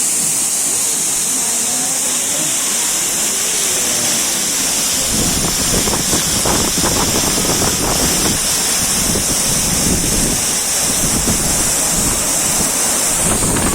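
Steady roar of a large waterfall. About five seconds in, gusty low rumbling from wind buffeting the microphone joins it.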